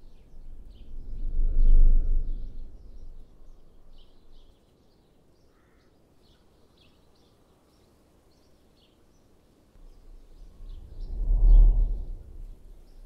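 Small birds chirping again and again, with two gusts of wind rumbling on the microphone, about two seconds in and again near the end.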